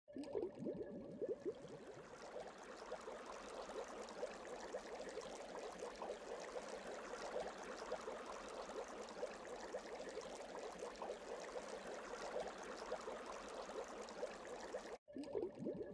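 Water bubbling and gurgling: a steady run of small pops and trickles that drops out for an instant near the end and then starts over.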